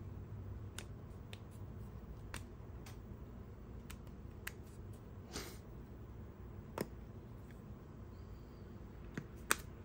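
A Sony A7R V camera body being handled: scattered small clicks and taps, a short rustle about halfway and a sharper click near the end, over a low steady hum.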